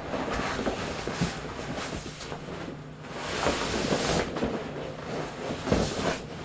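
Plastic rustling and rubbing of a vinyl rain jacket against the wall of an inflated vinyl pool as a person shifts and leans on it, in irregular swells with a few sharper bumps.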